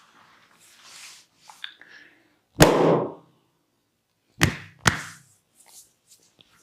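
Three sharp smacks from a barber's hands-on massage: one loud smack about two and a half seconds in with a short dull tail, then a quick pair about two seconds later. Faint rustling of hands and clothing comes in between.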